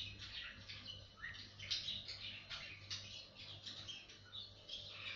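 A small bird chirping over and over in quick short calls, with a steady low hum underneath.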